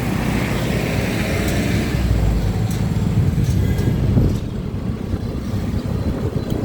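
Road traffic: vehicle engines running and passing in a steady low rumble that eases a little about four seconds in.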